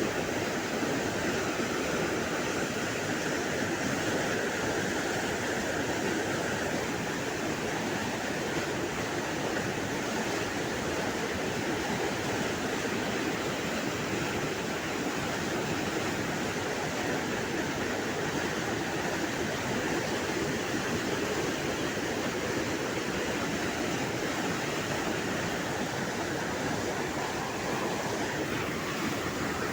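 Cauvery river water running fast and with force, carrying water released from the Mettur dam: a steady, even rushing that does not let up.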